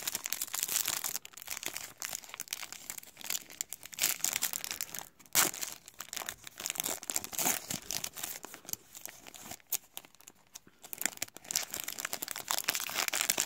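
Foil trading-card pack wrapper being torn open and crinkled in the hands: irregular crackling and rustling, with one sharper, louder crackle about five seconds in.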